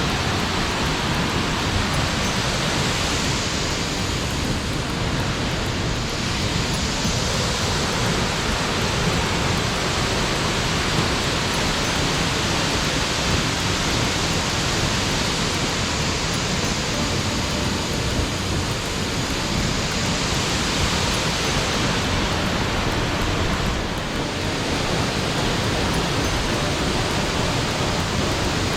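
Large waterfall, water falling and rushing heavily close by: a loud, steady wash of noise.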